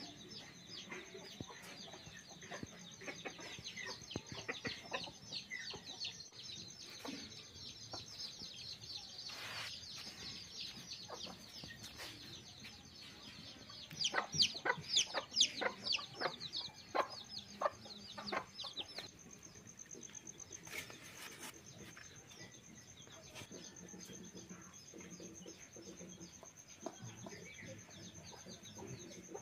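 Free-range chickens clucking amid many short, quick, high chirps. The chirping is loudest about halfway through, over a steady high-pitched whine.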